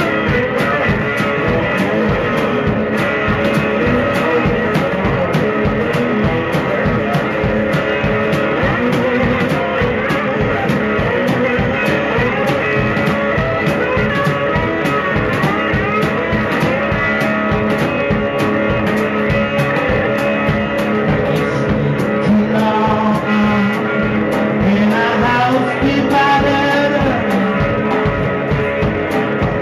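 Live blues from an electric guitar and a drum kit playing together to a steady beat.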